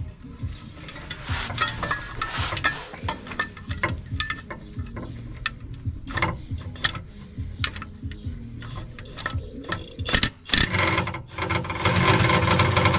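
Irregular metallic clicking and rattling from hand tools worked on the underside of a car's gearbox, like a ratchet spanner turning bolts. The clicks grow denser and louder near the end.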